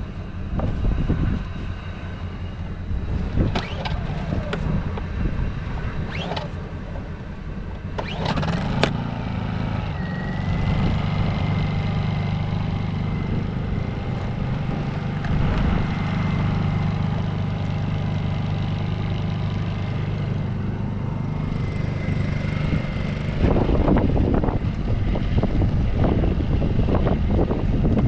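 Honda portable generator starting about eight seconds in, then running steadily at an even speed, after some knocks and clatter from handling it. Near the end, wind buffeting the microphone grows louder over the engine.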